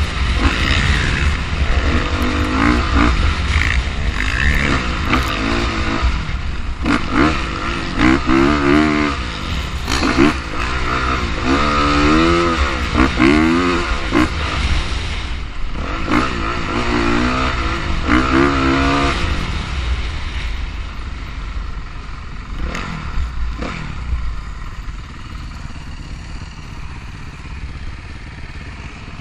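On-board sound of a dirt bike being ridden hard: the engine note climbs and drops again and again as it revs up through the gears, with wind buffeting the microphone. About two-thirds of the way in it settles lower and quieter as the bike slows down.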